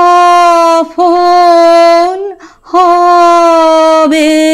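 A woman sings a Bengali song unaccompanied, drawing out long, steady held notes. Short breaths break the line about a second in, at a little past two seconds, and near the end.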